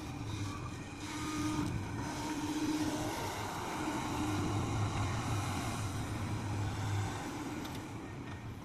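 Diesel engine of a working excavator running steadily under load, with a low hum that swells and eases as the machine works.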